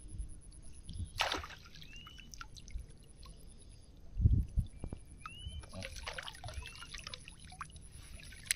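River water splashing and dripping as a folding mesh shrimp trap is handled and drawn up out of the water, with a dull thump about four seconds in. A short rising chirp repeats every second or two.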